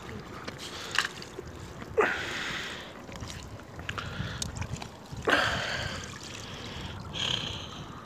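Shallow seawater sloshing among rocks and seaweed, with a few sharper splashes that swish and die away.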